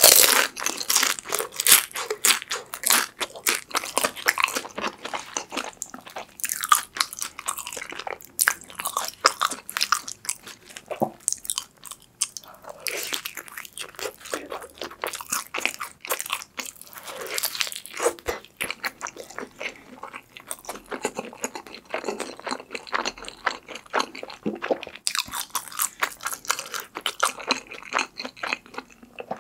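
Close-miked crunching and chewing of pepperoni Chicago-style pizza with a crisp crust, as irregular crackling bites in clusters.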